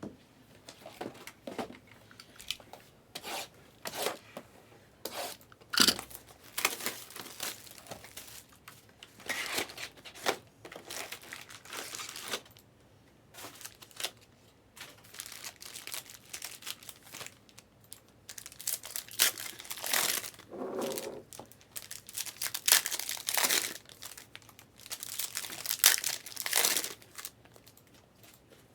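Plastic wrapping of trading card boxes and packs being torn open and crinkled by hand, in irregular rustling bursts.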